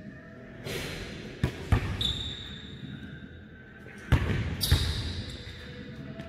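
Basketball bouncing hard on a hardwood gym floor, four sharp bounces in two pairs with echo from the big hall, and a high squeak held for about a second and a half between them.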